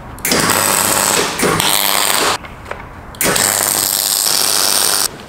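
MIG welder arc running on aluminium angle in two welds of about two seconds each, with a steady low hum underneath.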